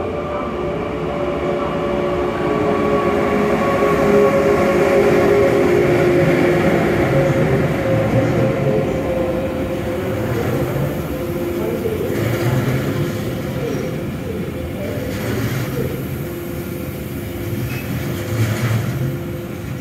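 Container freight train hauled by an electric locomotive passing through at speed. The locomotive's steady hum is loudest a few seconds in, then the container wagons rumble by with recurring thumps of wheels on the rails.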